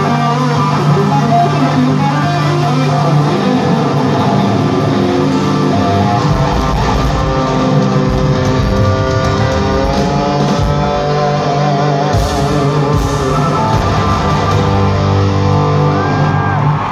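Live rock music with guitar at a concert, loud and continuous, with held notes that waver in pitch around the middle.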